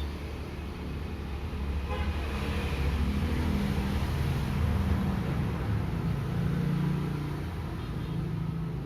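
Low steady rumble of a motor vehicle's engine, growing louder through the middle and easing off near the end.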